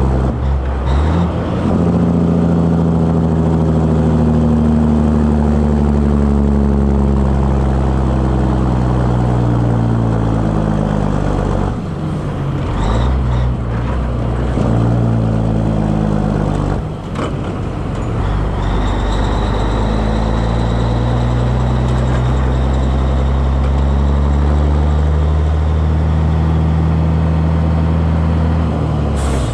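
1984 Peterbilt 362 cabover truck's diesel engine running on the road. Its pitch slowly falls, drops out briefly twice a few seconds apart, then climbs and holds steady near the end.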